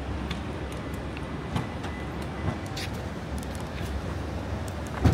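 Steady low rumble of luggage wheels rolling over paving tiles, with scattered small clicks and a sharp knock near the end.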